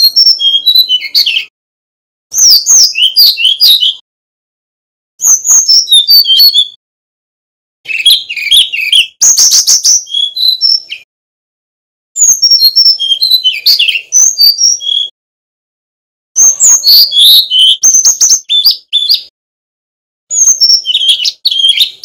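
Male brown-chested jungle flycatcher singing: seven short phrases of quick, varied, high whistled notes, each lasting one to three seconds, with brief pauses between them.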